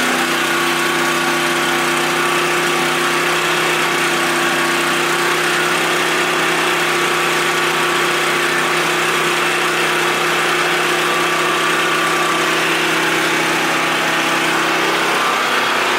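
Champion 3500-watt dual-fuel portable generator's single-cylinder engine running steadily at constant speed. It is warming up soon after a cold first start, with the choke still partly out.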